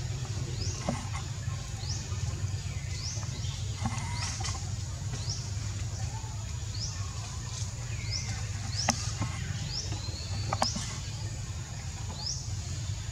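A bird repeats a short, high, rising chirp about once a second over a steady low rumble, with a couple of sharp clicks in the second half.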